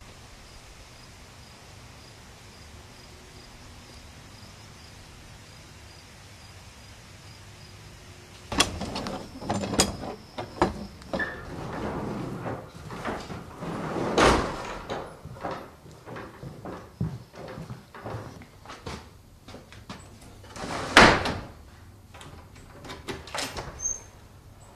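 A steady low hum for about eight seconds, then irregular knocks, clunks and scrapes of objects being handled, with the loudest knock about twenty seconds in.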